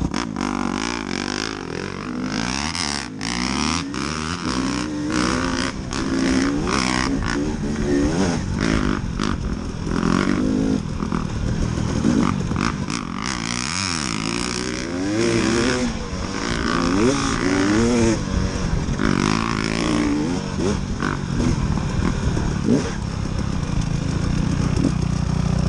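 KTM 300 two-stroke dirt bike engine revving up and down as it is ridden along a rough trail, its pitch rising and falling again and again, with wind rush and scattered knocks of the bike over the ground.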